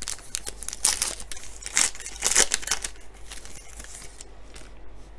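Foil trading-card pack wrapper crinkling and tearing as it is opened by hand, in quick irregular bursts over the first three seconds, then softer rustling.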